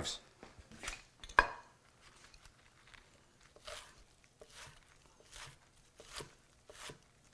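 Chef's knife chopping a bunch of chives on a wooden butcher-block cutting board, in short even strokes about two a second in the second half. There is a single sharp knock about a second and a half in.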